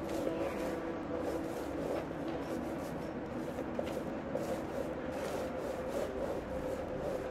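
Paint roller rubbed back and forth over a paper print on a brick wall, in repeated strokes, over a steady low hum.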